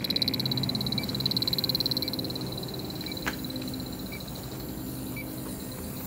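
Bacharach H10 Pro refrigerant leak detector sounding its rapid, high-pitched pulsing alarm as the probe picks up refrigerant. The alarm fades out about halfway through and gives way to a faint tick about once a second, over a low steady hum. The hit comes at a beer case, and the technician can't say whether it is a real leak or a fluke.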